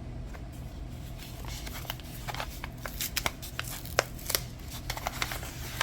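Hands handling and opening crinkly packaging: a run of sharp crackles and ticks that grows busier about two seconds in.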